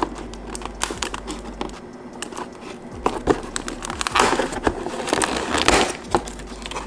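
Cardboard and paper packaging of a wine advent calendar crinkling and crackling in a run of irregular clicks, busiest about two-thirds of the way through, as a numbered door is opened and a small bottle is pulled out.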